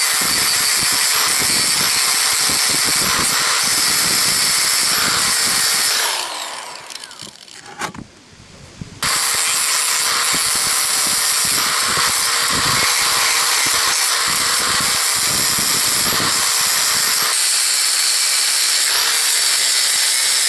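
Angle grinder grinding down old weld marks on the cast steel main casting of a metal shear, running with a steady high whine. It winds down about six seconds in, then starts again about three seconds later and runs on to near the end.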